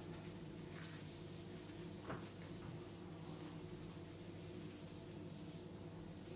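Faint rubbing of a cloth wiping marker ink off a whiteboard, over a steady low hum, with one light tap about two seconds in.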